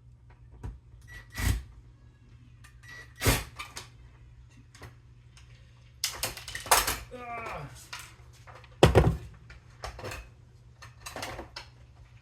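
Scattered clicks and knocks of screws being taken out of a refrigerator's plastic water-dispenser housing and tools and parts being handled, the loudest knock about nine seconds in. A brief voiced sound about seven seconds in.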